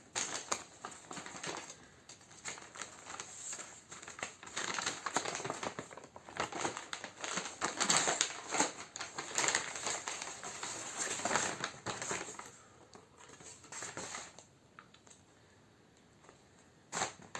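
Cardboard box and packaging being handled and worked open: dense crinkling, scraping and tapping for about twelve seconds, then quieter, with a short burst of handling near the end.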